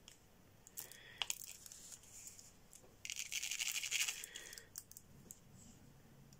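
Diamond painting in progress: a few light clicks about a second in, then about a second and a half of dry, scratchy plastic rattling and rubbing as the drill pen and multi-placer work resin drills over the canvas.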